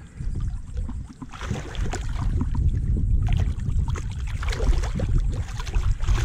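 Water splashing and sloshing beside a kayak as a landed tarpon is held in the water and revived for release, starting about a second in, over a steady rumble of wind on the microphone.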